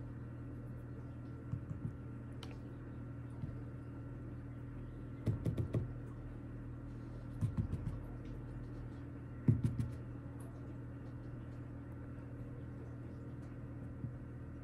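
Light fingertip taps and clicks in short clusters, as fingers dab eyeshadow from a palette and swatch it onto the back of the hand, over a low steady hum.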